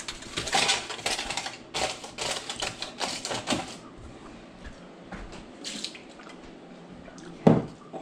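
Aluminium foil crinkling as it is pulled and pressed over a bowl: a run of crackling rustles for the first few seconds, softer ones after, then one sharp knock near the end.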